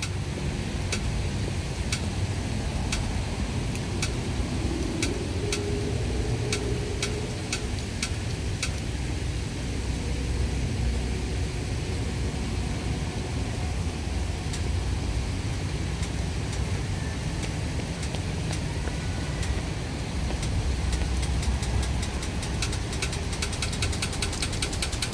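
Steady low rumble of city background noise, with faint sharp ticks about once a second that become rapid near the end.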